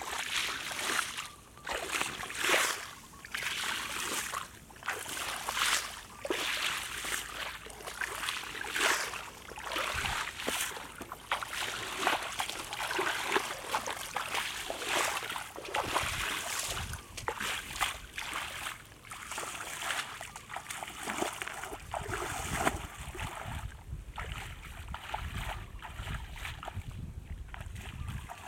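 Bare feet splashing and swishing through shallow water in a flooded grassy field, about one step a second, growing fainter near the end.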